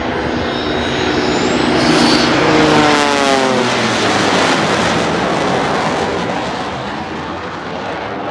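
A Lockheed P-38 Lightning's twin Allison V-12 engines and a single-engine aerobatic plane flying past together. The engine note is loudest two to three seconds in and drops in pitch as they go by, fading into a broad rush of prop and engine noise.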